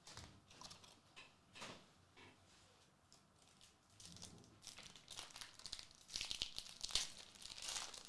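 Trading-card pack wrappers crinkling and tearing as packs are opened, in short scratchy rustles that grow busier and louder about halfway through.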